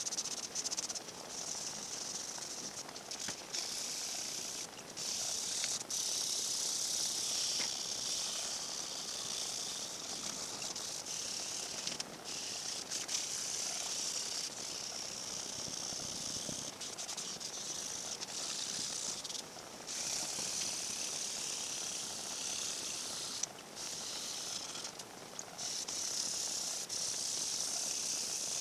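1000-grit wet sandpaper on a sanding block rubbing over the oil-based finish of a guitar body: a steady, high hiss, broken by a few short pauses.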